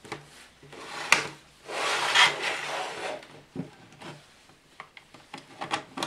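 A sharp plastic click about a second in, then a second or so of scraping and rubbing, and a few light clicks near the end, as a laptop's plastic palm rest is pried from its base with a plastic spudger.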